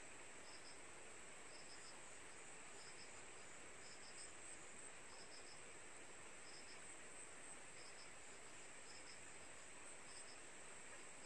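Faint insects chirping: a steady high-pitched trill, with a short double chirp repeating about once a second.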